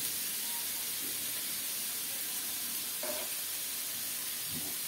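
Hot oil sizzling steadily in a pan, with turmeric and chili powder just added for a curry base.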